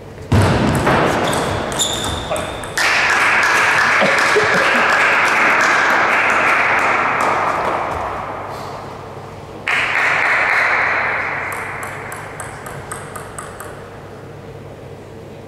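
Spectators shouting and cheering after a table tennis point, in sudden swells that fade away, the last one starting about ten seconds in. Near the end, sharp clicks of the table tennis ball bouncing before the serve.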